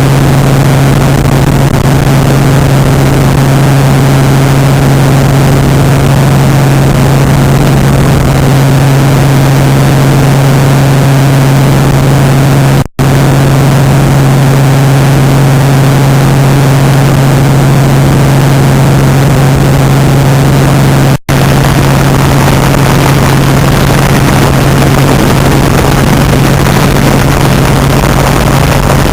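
Helicopter engine and rotor noise heard from inside the cabin: a loud, steady drone with a strong low hum. It breaks off for an instant twice, about 13 and 21 seconds in.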